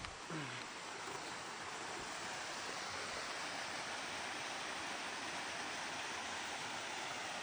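Steady rushing of falling water from a stream or small waterfall, an even hiss with no rhythm. A short low falling sound comes just after the start.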